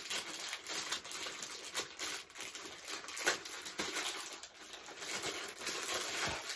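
Plastic packaging crinkling and crackling steadily as it is handled and pulled open, with many irregular sharp crackles.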